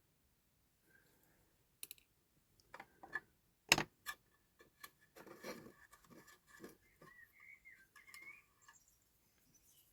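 Small sharp clicks and taps with some scraping as metal tweezers and small parts are worked against a diecast toy coach, the loudest click a little under four seconds in. Faint bird chirps come in near the end.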